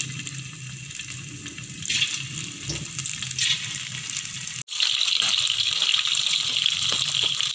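Marinated chicken pieces deep-frying in hot oil in a wok, a continuous hissing sizzle. A little past halfway the sound cuts out for an instant and comes back louder and steadier.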